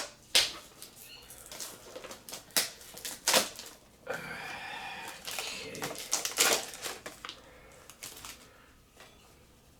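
Hands handling card game packaging: scattered clicks and taps, with a stretch of crinkling and rustling in the middle.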